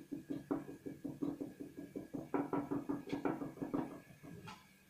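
Container of ground black pepper being shaken and tapped over the bowl: a quick run of light taps, several a second, that stops about four seconds in.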